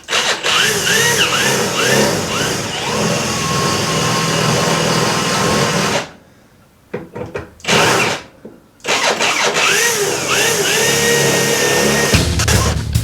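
Electric drill cutting out spot welds in steel body panels, the motor's pitch rising and dipping over and over as it bites, stopping briefly twice partway through.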